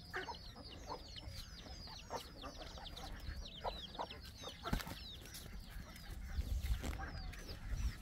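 A group of small birds cheeping: many short, high, falling chirps, several a second and overlapping, with a low rumble underneath and a single knock about halfway through.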